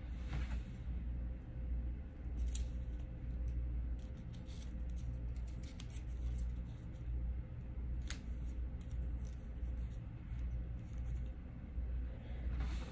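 Small handling sounds from hands working a Yorkie's topknot and fitting a hair bow, with a couple of sharp clicks, about 2.5 and 8 seconds in, over a steady low hum.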